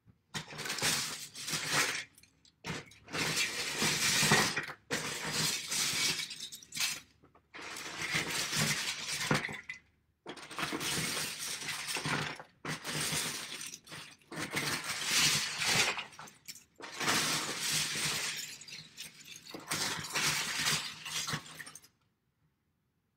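Loose plastic Lego bricks rattling and clinking as a hand rummages through a bin full of them. The rattling comes in stretches of a second or two with short pauses, and stops shortly before the end.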